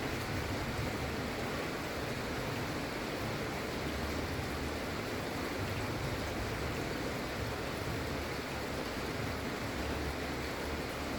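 Gentle, steady rain falling, an even hiss with a faint uneven low rumble underneath.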